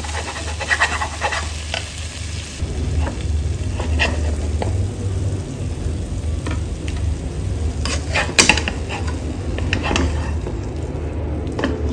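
Spatulas scraping and tapping against a nonstick pan as masala-coated chicken pieces are lifted out, with the nearly dry masala still sizzling in the hot pan. The scrapes come irregularly, the sharpest about two-thirds of the way through.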